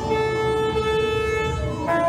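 Live instrumental music: a sustained, droning chord of held notes with no singing, shifting to a new chord just before the end.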